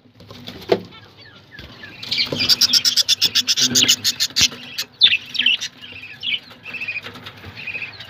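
Budgerigars chirping. About two seconds in comes a burst of rapid, scratchy clicking chatter lasting just over a second, followed by short scattered chirps.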